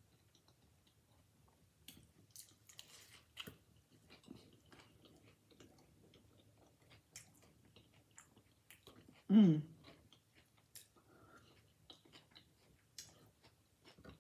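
Close-miked chewing and crunching of a crunchy corn taco shell, with small crackles as pieces of the shell are broken off by hand. About nine seconds in, the eater gives one short hum, falling in pitch, which is the loudest sound.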